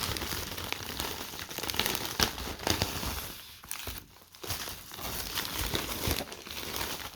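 Mailing package wrapping being handled and opened: irregular crinkling and rustling, with a brief lull about halfway through.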